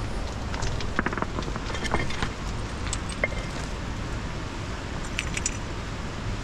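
Wind buffeting the microphone as a low rumble, with scattered clicks and clinks from a climber moving over loose rock and ice.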